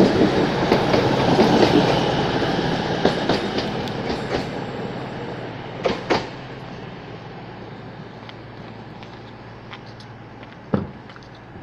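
CrossCountry Class 220 Voyager diesel multiple unit pulling into the platform, its running and wheel noise fading steadily as it slows to a stop. A pair of sharp knocks comes about six seconds in, and one more near the end.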